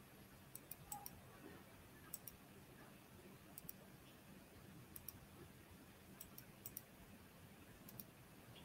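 Near silence: low room tone with faint, sharp clicks, mostly in quick pairs, about every second or so.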